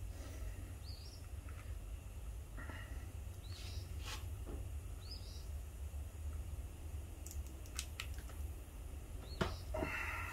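A few sharp clicks of pliers and a zip tie as the tie is pulled tight to snug a metal CV boot clamp, over a steady low hum. Faint bird chirps come and go a few times.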